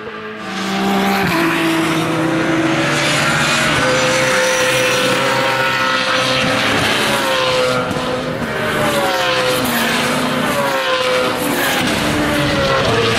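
BMW Z4 GT3's V8 race engine at full throttle, its pitch climbing hard through the gears and then falling in steps as the car brakes and downshifts, several times over.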